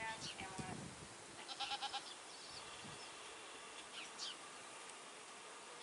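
Goats bleating: a short call at the start, then a louder bleat with a quick waver about a second and a half in.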